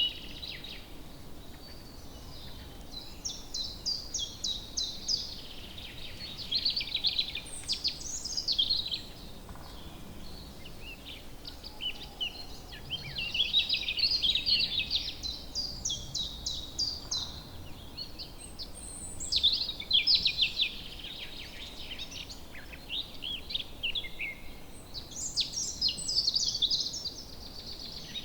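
A songbird singing outdoors: repeated phrases of rapid high notes and trills, each a second or a few seconds long, with short gaps between them, over faint steady background noise.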